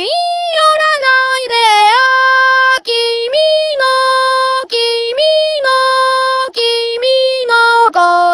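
Music: a high female singing voice alone, with no backing, holding a melody of sustained notes that slide between pitches, with short breaks between phrases.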